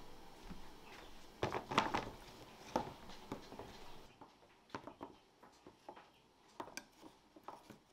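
Rhubarb stalks knocking down onto a cutting board, a few sharp knocks in a cluster, then fainter scattered taps and clicks as the stalks are handled and laid out.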